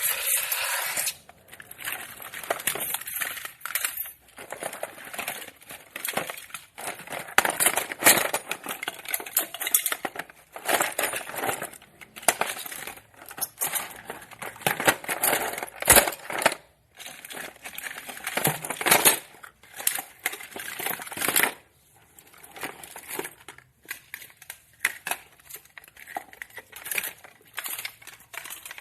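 Objects being picked up and handled: a run of rustling, crackling and clicking noises in bursts of a second or two, with short pauses between them.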